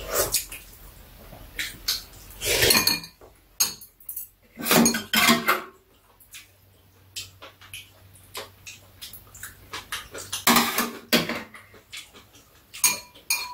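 Metal spoons and chopsticks clinking and scraping against bowls and a metal serving tray as food is eaten: scattered irregular clicks, a few with a short ring.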